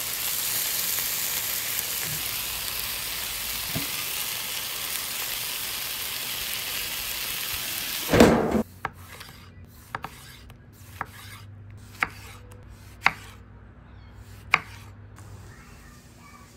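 Chicken breasts sizzling on a hot flat-top griddle, a steady frying hiss that ends abruptly with a loud thump about eight seconds in. After it, quieter, with about six sharp clicks roughly a second apart.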